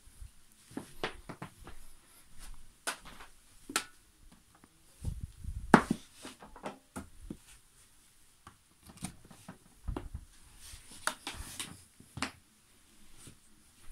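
Handling noise from a vacuum cleaner being moved about on a carpet, along with its power cord and plug: scattered clicks and knocks with a few dull thuds, the loudest thud about six seconds in. The vacuum's motor is not running.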